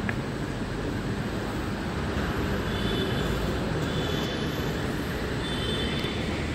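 Steady rumble of a Namma Metro train running through the station, with three brief faint high-pitched tones partway through.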